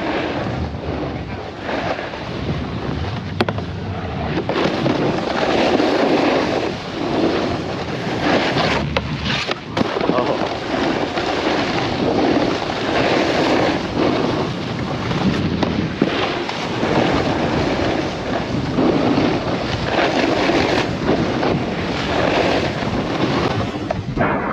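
Snowboard sliding and scraping over hard-packed snow, swelling and easing every second or two, mixed with wind noise on a helmet-mounted action camera's microphone.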